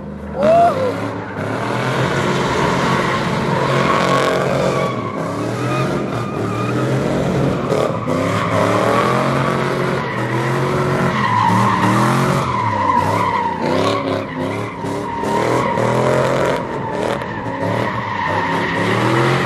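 GMC Sierra pickup doing donuts, its engine revving up and falling back over and over while the tyres squeal and skid on the asphalt.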